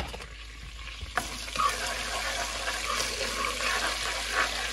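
Cumin and mustard seeds, onion and bay leaves sizzling as they fry in butter in a pot, stirred with a spoon. A sharp knock comes about a second in, and the sizzle is louder after it.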